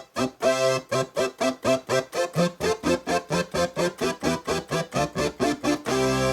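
Roland JX-3P analog polysynth with the Kiwi-3P upgrade playing its Synth Brass 1 preset: quick, evenly repeated staccato brass stabs, about five a second, then a held brass chord near the end.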